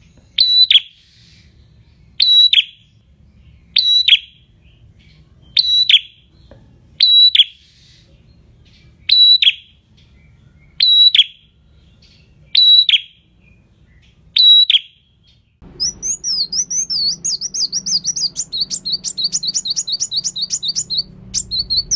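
Caged prenjak, a small Indonesian warbler, repeating a loud, sharp, high call nine times, one about every second and a half to two seconds. From about fifteen and a half seconds in, a different fast, high twittering birdsong over a faint hum takes over.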